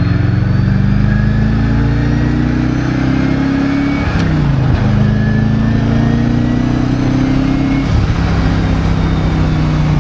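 Twin-turbo V8 of a 1000 hp Callaway Corvette, heard from inside the cabin, pulling up through the gears. The engine note climbs, drops at a gear change about four seconds in, climbs again, and drops at a second shift near eight seconds.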